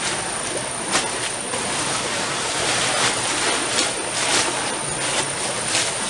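Nylon tent fabric rustling and crinkling as it is pulled from its bag and shaken out over stony ground, in short irregular swishes. Under it runs a steady high-pitched insect drone.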